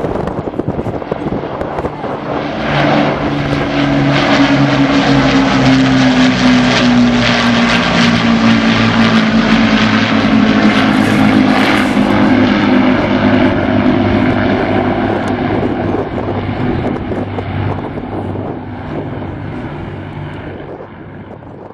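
Piston-engined propeller aircraft flying past overhead: the engine drone swells, its pitch slides down as it passes, then it fades away near the end.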